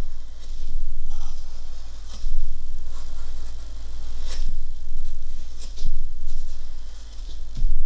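Soft graphite pencil scratching across paper in a run of strokes as a sketch is traced through to transfer it, with a steady low hum underneath and a sharp tick about four seconds in.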